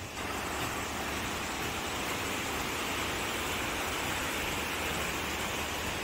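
Valley stream flowing over a rocky bed: a steady, even rush of water.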